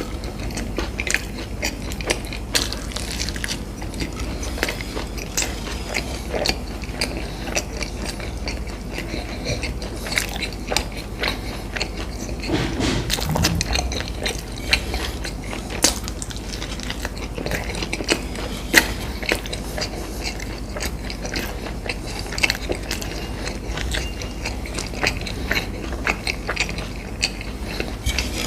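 Close-miked eating: a person biting and chewing crunchy food, with irregular crisp crackles and wet clicks of mastication.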